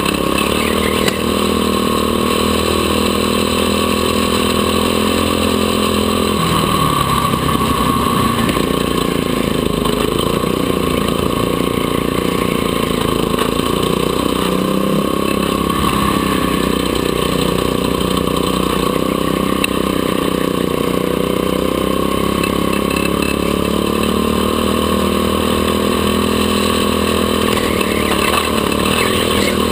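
Go-kart engine running at speed, heard onboard. The revs hold high, fall away about six seconds in, climb again, then dip briefly around halfway and once more near the end.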